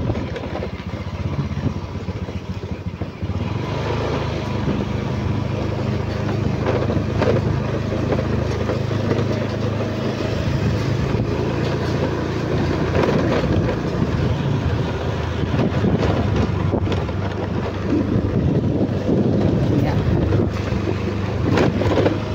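Small motorcycle engine running steadily while riding, with wind noise on the microphone. The engine grows louder about three to four seconds in as it pulls away.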